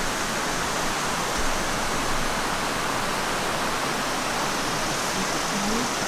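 Mountain river rushing over boulders in shallow rapids, a steady, even rush of water.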